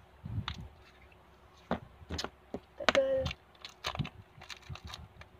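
Irregular sticky clicks and snaps of slime being squished and stretched by hand.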